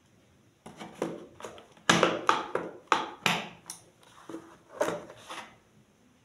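Kitchen knives being handled in their boxed set: about a dozen irregular knocks and clicks as blades and handles are set down into, and picked up from, the case, some with a brief ring.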